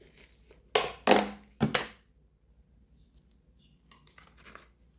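A bread bag crinkled and rustled by hand in three quick bursts in the first two seconds, then faint handling near the end.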